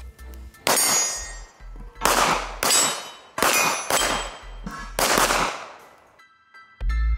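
Six pistol shots fired in quick strings, each trailing into a clang and ring of struck steel targets. Background music with a heavy beat swells near the end.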